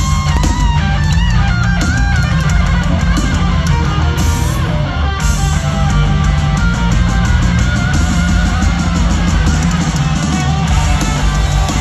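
Live rock band playing loud, with electric guitars over a steady drum beat.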